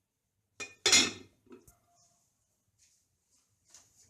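Kitchenware knocking and clinking: one sharp clatter about a second in, then a couple of fainter knocks.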